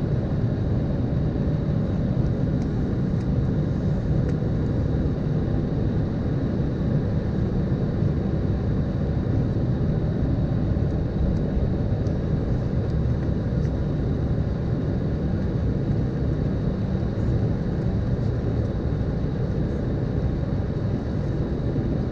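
Cabin sound of an Embraer ERJ-195's GE CF34-10E turbofans as the jet taxis onto the runway: a steady engine rumble at taxi power with a thin, high steady tone over it.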